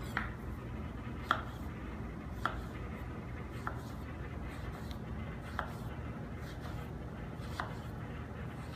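Knife slicing soft, skin-on peaches on a wooden cutting board, the blade knocking on the board six times, about one to two seconds apart, over a steady low background hum.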